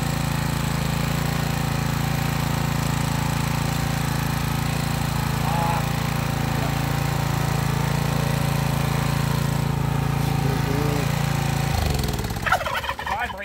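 Rototiller's small gasoline engine running steadily in place, then shut off about twelve seconds in, its pitch falling as it runs down to a stop.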